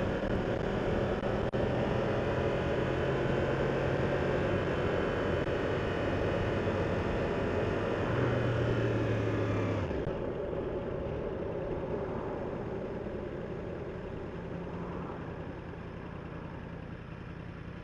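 2015 Yamaha R1's inline-four engine running steadily at road speed with wind noise. About ten seconds in the engine note drops away, the wind hiss stops and the sound quietens as the bike slows behind traffic.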